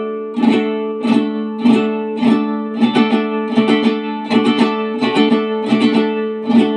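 Mexican vihuela with a flamed cedar body and a Spanish-style round soundhole, strummed in a steady rhythm on a single ringing chord. The strums come about every half second, with quick double strokes in the middle.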